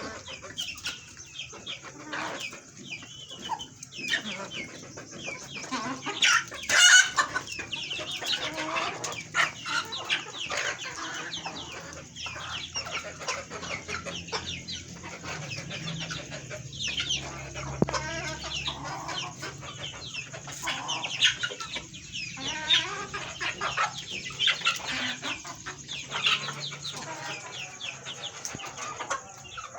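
A flock of chickens in a poultry house clucking without pause, many birds calling over one another, with one loud call about seven seconds in.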